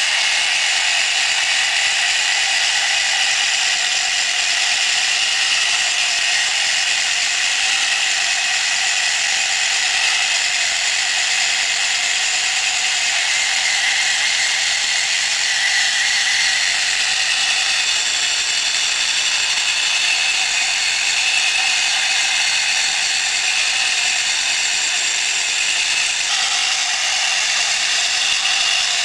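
The chain tracks and drive of a home-built chipboard crawler-tractor prototype running steadily: a continuous mechanical rattling whir of gearing and track links as the tracks turn.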